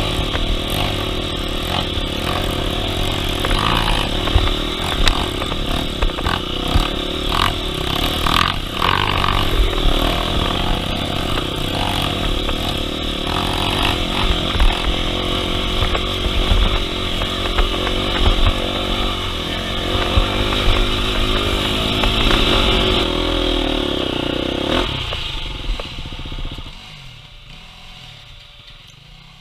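Off-road dirt bike engine running under load on a rough trail, with knocks and rattles of the bike over the ground. Near the end it dies away to a much lower level as the bike slows.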